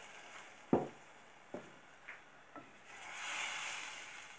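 Three light knocks, then a wooden spoon stirring through tomato sauce in an enamel pot, a soft swish about three seconds in.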